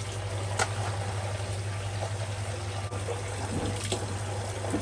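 Tap water running steadily from a faucet into a plastic bucket in a sink, filling it, with a low steady hum underneath.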